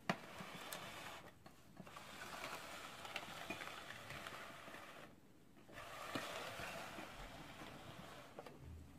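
Faint scraping and light clicks of a plastic tray being slid and turned on a tabletop, over a low hiss.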